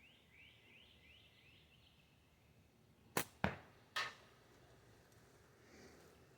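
Shooting at a cowbell target: three sharp cracks in quick succession a little over three seconds in, the last one trailing a short ring. Before them a bird repeats a quick rising chirp.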